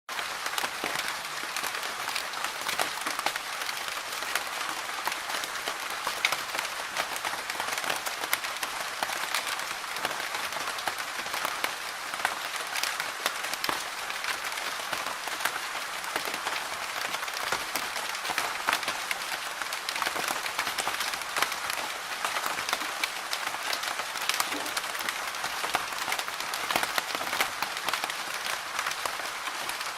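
Steady medium rain, a dense patter of many individual drops striking a hard surface with frequent sharp ticks, even in level throughout.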